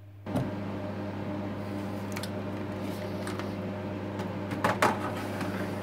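Steady electrical hum and fan noise from running rack equipment, with several light knocks and clicks as a four-battery replacement pack is slid into the battery bay of an APC Smart-UPS 1500; the loudest knocks come about three-quarters through.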